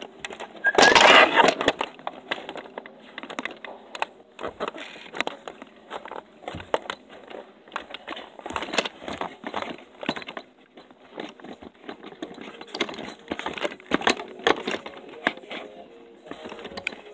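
Handling noise on a covered phone's microphone: dense rustling and scattered clicks and knocks, with a loud scrape about a second in.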